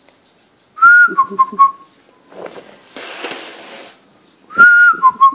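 A person whistling a two-note call, a high note dropping to a held lower one, twice, to call the dog. In between there is a short rustling noise.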